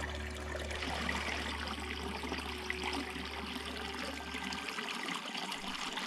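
A small mountain creek running and trickling over rocks in a steady, even wash of water.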